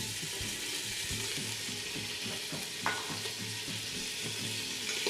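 Mushrooms and mixed vegetables sizzling steadily in hot oil in a pan as they are tossed over the heat, with a light click of a utensil about three seconds in.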